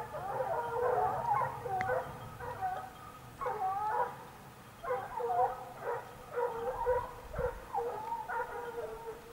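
A pack of hunting hounds giving tongue on a wild boar's scent, several voices baying over one another. The chorus is dense for the first couple of seconds, then breaks into separate bouts of baying.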